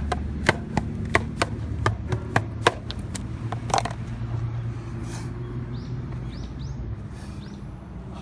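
Shindaiwa E300 two-stroke chainsaw engine idling steadily with the chain still. During the first four seconds it is broken by about nine sharp, irregular clicks.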